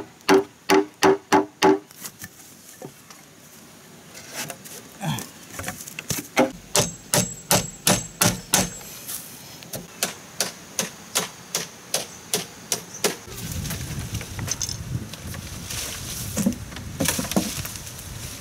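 Green bamboo being struck and chopped, each blow a hollow knock. A fast run of about three ringing knocks a second opens, then a longer run of sharp strikes at about two a second. Near the end these give way to softer knocks and handling noise.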